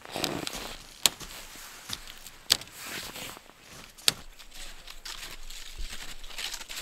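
Three sharp knocks about a second and a half apart, with rustling noises between them.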